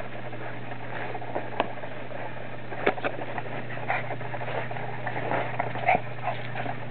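Pomeranian making several short, sharp yips while waiting for its ball to be thrown, over a steady low hum.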